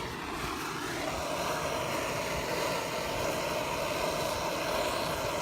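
Propane torch flame running with a steady hiss while burning the plastic of an old truck horn, with wind rumbling on the microphone.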